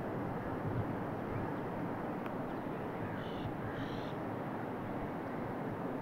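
Steady rush of water pouring over the dam's spillway, with a crow cawing twice about three seconds in.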